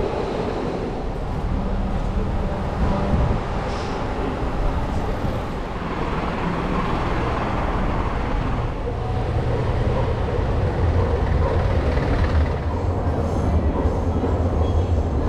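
A train passing close by: a steady rumble of wheels and running gear on the track, growing somewhat louder in the second half.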